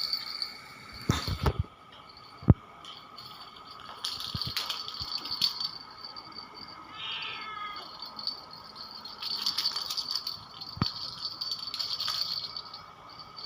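Kittens batting a rattling toy ball around: irregular bursts of rattling and light knocks, with one sharp thud about two and a half seconds in. A brief kitten mew sounds about seven seconds in.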